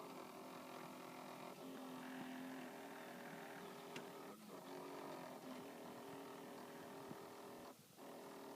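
Faint, steady whine of a toy RC boat's small electric motor, made of several tones at once, dipping and shifting in pitch a few times as the throttle is eased and opened again.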